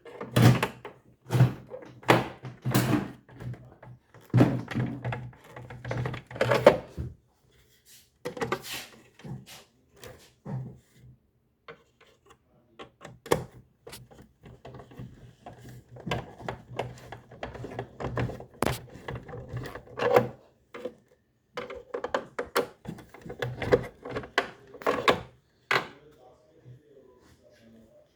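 Irregular knocks, clicks and thuds of hard objects being handled, over a faint steady low hum.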